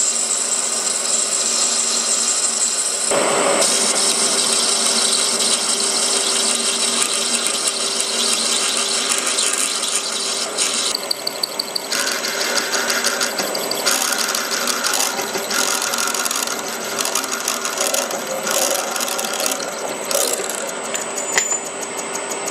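Metal lathe running with a parting tool cutting through the spinning stock: a steady whine over a cutting hiss, running smoothly without chatter. From about eleven seconds in the sound turns choppy and uneven.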